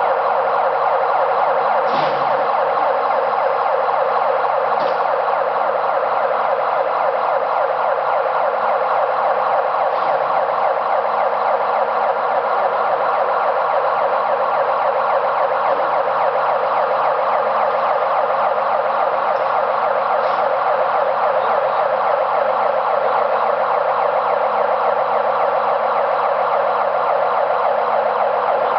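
Overhead crane's warning siren sounding steadily without a break, over a low hum, with a few faint clicks.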